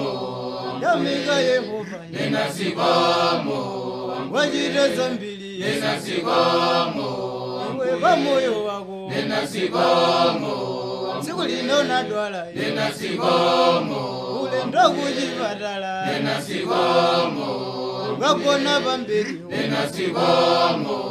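Choir of voices singing a Chichewa gospel song of thanks in harmony, unaccompanied.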